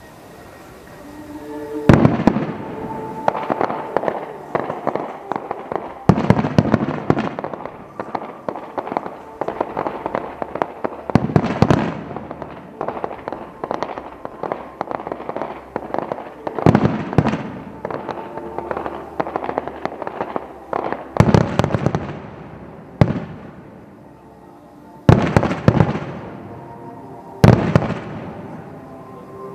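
Large fireworks display: a string of loud booms from shells bursting, with dense rapid crackling between them and a brief lull before the last few booms. Music plays faintly beneath, heard most clearly just before the first boom.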